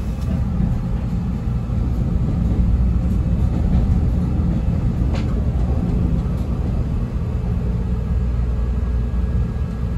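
CTA 5000-series rapid transit car running between stations, heard inside the cabin: a steady low rumble of wheels on the rails, with a single faint click about five seconds in.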